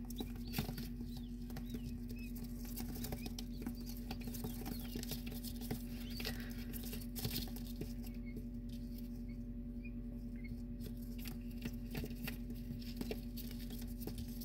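Newly hatched quail chicks scurrying and pecking on a sheet of paper: a constant scatter of light ticks and scratches, with a few faint high peeps.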